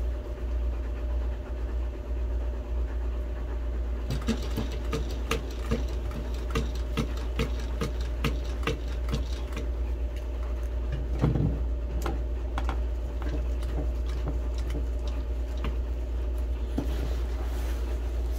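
Sewing machine stitching a name patch onto a club vest: a slow run of needle clicks, about two or three a second, starting about four seconds in and stopping near the end, over a steady low hum.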